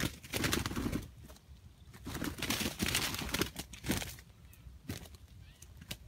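Two junglefowl roosters fighting, wings beating in two hard flurries, one about half a second in and a longer one from about two to three and a half seconds, then a few single wing strokes.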